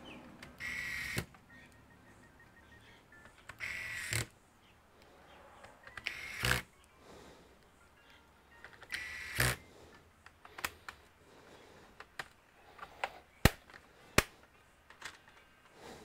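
Four short hissing bursts, about half a second each, from a hose nozzle working dust off the underside of a laptop. These are followed by several sharp clicks of small hardware being handled; the loudest click comes about two-thirds of the way in.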